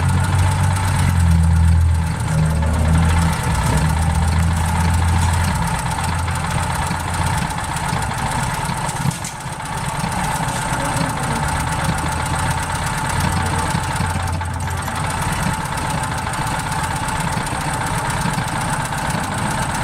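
Propane-fed portable generator engine running with the choke open, a steady mechanical hum with a constant whine, its low rumble swelling and easing every few seconds and dipping briefly about halfway through.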